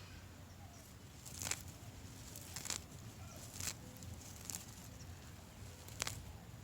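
Garden cress plants being pulled up by the roots: about six short, scattered rustles and snaps of leafy stems and soil.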